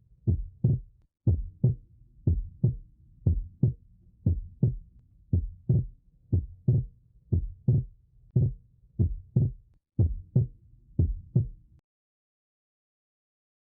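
Normal heart sounds, a steady 'tum-tá' rhythm of about one beat a second. Each beat is a pair of low thumps: the first heart sound, from the atrioventricular valves closing, then the second, from the semilunar valves closing. The beats stop a little before the end.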